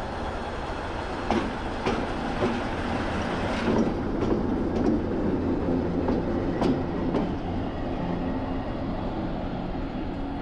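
ChME3 diesel shunting locomotive passing close at low speed, its diesel engine running with a steady drone. Its wheels knock sharply over rail joints several times, between about one and seven seconds in.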